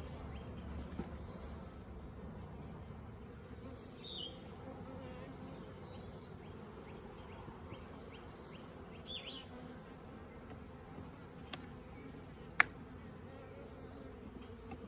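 Honeybees from an open nuc colony buzzing steadily, with a single sharp click about twelve seconds in.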